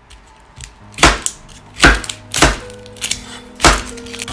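Kitchen knife chopping vegetables on a wooden cutting board: four sharp chops at uneven intervals, the first about a second in.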